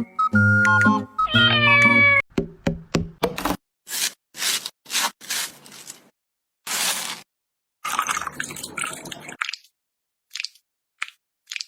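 A short musical phrase with a cat's meow for about the first two seconds. Then a few quick knocks and a series of short hissing, scraping noises, typical of food being prepared.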